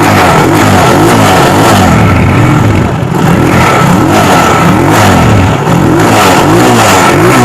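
125 cc motorcycle engine revved up and down over and over through its exhaust silencer, which has been filled with a petrol, engine oil and detergent mix. The revving is meant to blow the cleaning mix and carbon dirt out of the silencer.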